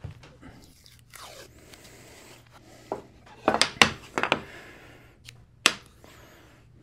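Blue painter's tape pulled off the roll and torn in a few short, sharp rips, most of them about three and a half to four and a half seconds in, with one more near the end.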